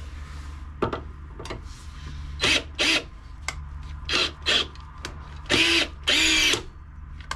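Cordless drill driving a long screwdriver bit into a tight seat-mounting bolt, its motor whirring in about six short bursts, the last two longest.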